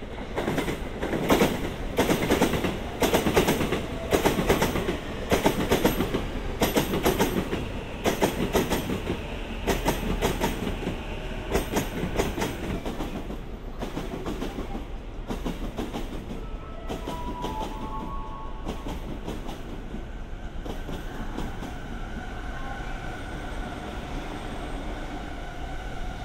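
A train running past, its wheels clacking over rail joints in a quick irregular rhythm that is loudest in the first half and then fades into a steady rumble. A few short tones sound briefly near the middle.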